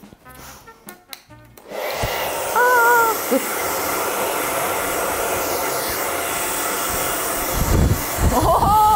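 Hand-held hair dryer switched on about two seconds in and blowing steadily on a wet cat to dry its fur. Over it the cat gives a short cry soon after, and a longer rising-then-falling yowl near the end.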